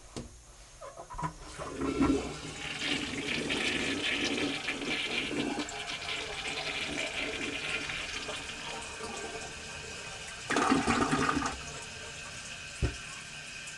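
Toilet flushing: water rushing and swirling in the bowl for several seconds, then the steady hiss of the tank refilling. There is a brief louder burst of water noise near the end and a single knock.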